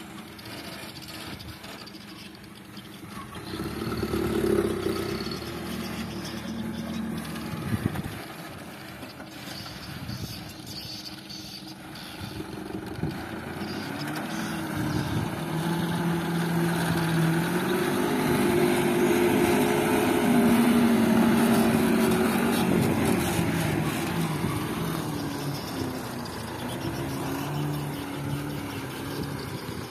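Isuzu Elf HD dump truck's diesel engine, fitted with an aftermarket 'wolf' exhaust, running and revving as the loaded truck drives and manoeuvres, its pitch rising and falling with the throttle and loudest about two-thirds through. A single sharp knock about a quarter of the way in.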